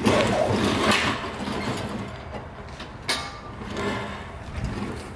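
Homemade steel trebuchet firing: a sudden loud burst of clatter and rushing noise as it throws, fading over about two seconds, then a single sharp knock about three seconds in.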